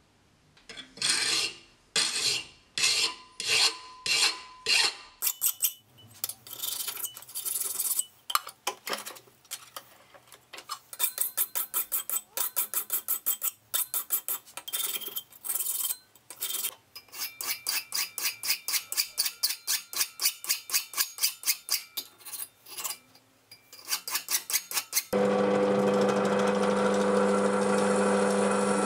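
Flat file rasping back and forth over a steel blank cut from a table saw blade. There are slow, even strokes at first, a little under two a second, then quicker strokes. About 25 seconds in, a drill press starts running steadily, its bit drilling into the steel.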